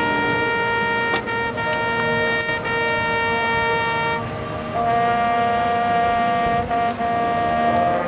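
Marching band's winds and brass holding a long sustained chord for about four seconds, then moving to a new, higher chord that is held to the end, with a few short percussion hits underneath.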